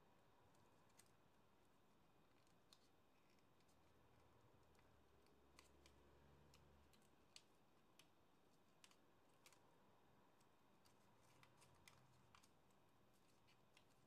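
Faint, scattered clicks and crinkles of origami paper being folded and creased between the fingers, over near silence.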